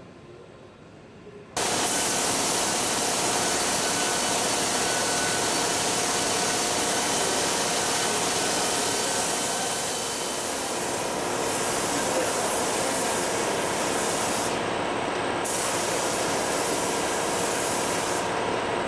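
Paint spray gun fed by a compressed-air hose, hissing steadily as it sprays paint. It starts abruptly about a second and a half in.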